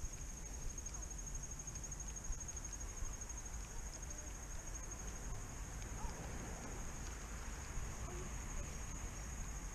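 An insect trilling on one steady high note, over a low rumble.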